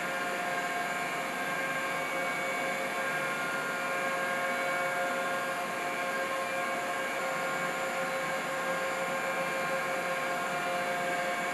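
Steady machinery noise from running pumps and equipment in a nuclear power station's plant room: an even hiss with several steady whining tones over it.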